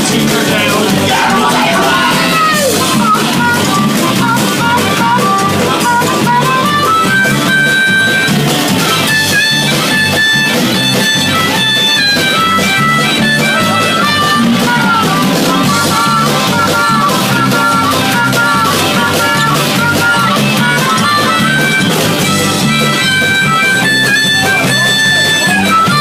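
Live band playing an instrumental break, a harmonica taking the lead with bending notes over guitar and drums.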